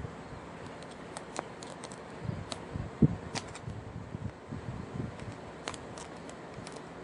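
Light clicks and knocks as the parts of a replacement electrical plug are handled and fitted together, with one sharper knock about three seconds in.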